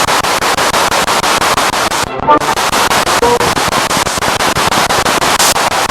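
Spirit box sweeping through radio stations: loud static chopped into rapid, even pulses many times a second, with brief fragments of broadcast sound flashing through, one a little past two seconds in.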